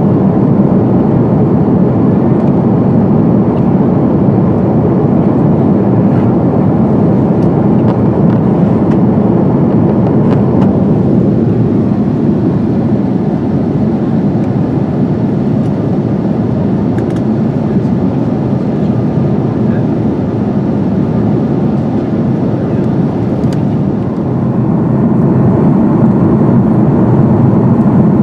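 Airbus A330-200 airliner heard from inside the cabin: a loud, steady jet-engine and airflow rumble. It eases slightly about halfway through and builds again near the end.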